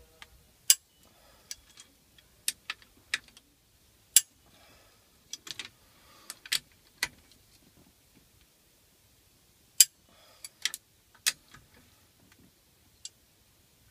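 Click-type torque wrench and socket on cylinder head bolts: sharp, separate clicks at irregular intervals as the wrench is pulled to its 86 Nm setting on each bolt and moved to the next, with faint handling rustle between.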